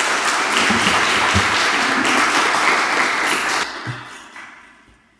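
Audience applauding, then stopping fairly suddenly about three and a half seconds in and dying away.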